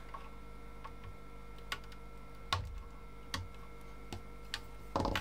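Light clicks and taps, about one a second with a couple of duller knocks, from an internal wiring connector being handled and pushed back into its socket on a circuit board.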